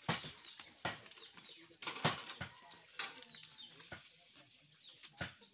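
Faint bird calls in the background, with several sharp knocks or cracks scattered through.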